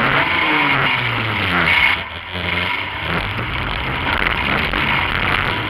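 Compact demolition-derby car's engine, heard from inside the car, revving up over about two seconds, easing off briefly, then revving again over the steady din of the arena.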